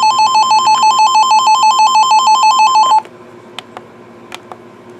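Electronic alarm of a weather alert radio: a two-pitch warble near 1 kHz, alternating rapidly about six times a second. It cuts off suddenly about three seconds in, signalling an incoming weather alert broadcast.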